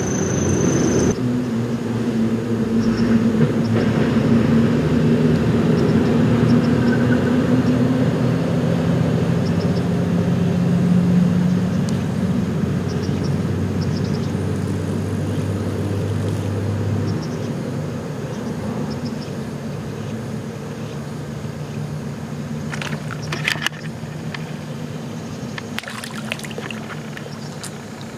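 Steady engine drone with a low hum of several held tones, loudest in the first half and slowly fading, with a few short sharp sounds near the end.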